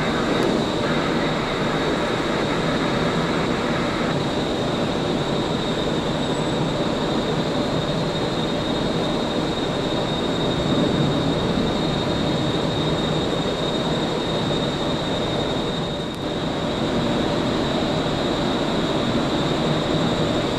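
Jet airliner engines running steadily: a dense, loud rumble with a high steady whine over it, dipping briefly near the end.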